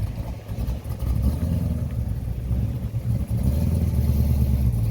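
A car engine running at low revs, a steady low rumble that grows a little louder in the second half.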